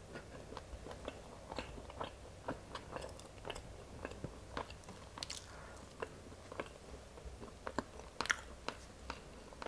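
Chewing of boiled velvet bean (Mucuna) seeds: soft, faint mouth clicks and smacks about once or twice a second. Near the end come a couple of sharper cracks as a boiled pod is split open by hand.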